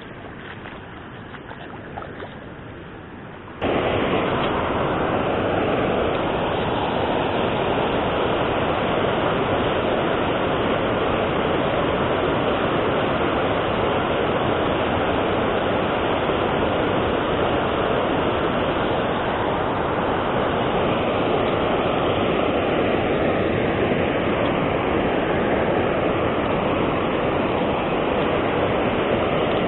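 Quiet for the first few seconds, then a steady rushing of water pouring over a river weir starts abruptly and holds evenly.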